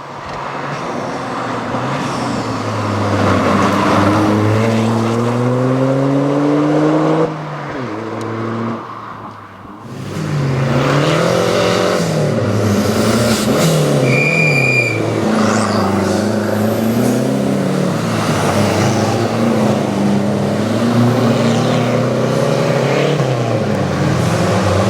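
Rally car engine at full throttle, its pitch climbing steadily, then dropping off about seven seconds in. From about ten seconds in, a rally car runs at high revs with the pitch rising and falling through gear changes and lifts. There is a short high squeal about fourteen seconds in.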